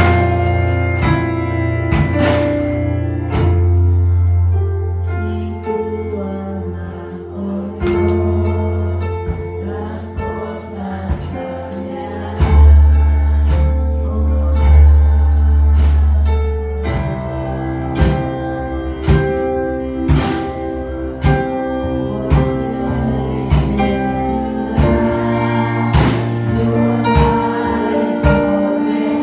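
Live gospel worship music from a small church band: electronic keyboards holding chords over a deep bass line, a drum kit keeping a steady beat, and a voice singing over the sound system.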